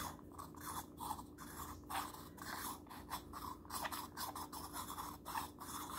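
Volcanic-stone face roller rubbing and rolling over the skin of the nose: faint, irregular scratching strokes, several a second. The stone ball drags and sticks rather than gliding smoothly.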